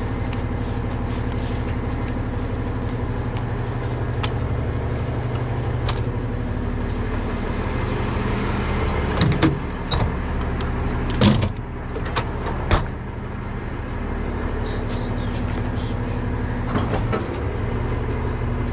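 A tow truck's engine idling steadily, with scattered light clicks as a ratchet strap is worked. Between about nine and thirteen seconds in come a few loud knocks and clatters as a metal side compartment is opened and gear inside is handled.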